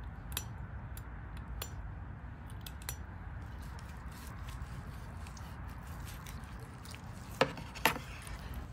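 A long slicing knife cutting the bone rack off a smoked prime rib on a cutting board, with faint scrapes and small clicks. Near the end come two sharp knocks of the blade, half a second apart. A steady low background noise runs underneath.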